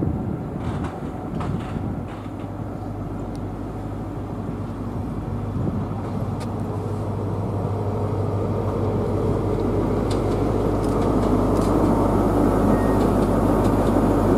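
InterCity 225 electric express train led by a Class 91 locomotive approaching along the main line, its sound growing steadily louder, with a steady low hum underneath and a few faint clicks.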